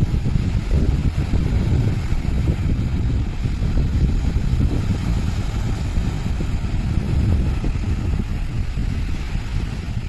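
Wind buffeting the microphone: a loud, uneven low rush with no steady tone, fading out right at the end.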